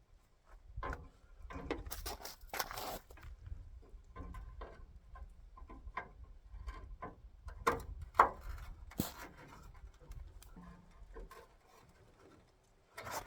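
Hand tools working at the fasteners of an AMC Marlin's front lower valance: scattered, irregular metal clicks, taps and scrapes, with a sharper click about nine seconds in and a short quiet stretch near the end.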